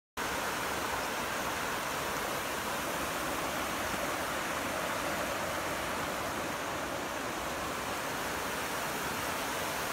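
Creek water rushing steadily over rocks and shallow rapids.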